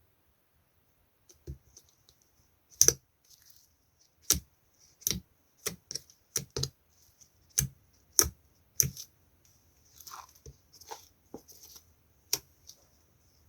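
Slime being handled and pressed, giving irregular sharp pops and clicks as air pockets burst, with softer squishing near the middle.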